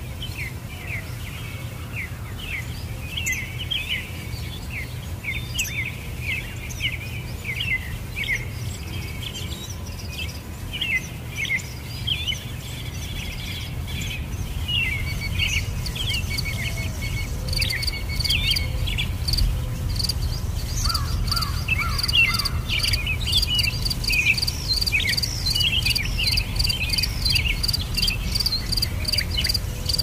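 Many small birds chirping and twittering in quick, short calls. About halfway through, insects join with a rapid, steady pulsing trill. A steady low rumble sits underneath.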